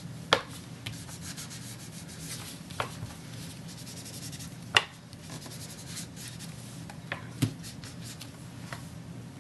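Inked stamping sponge rubbed in quick repeated strokes over cardstock, a steady scratchy rubbing, with about four short sharp taps along the way.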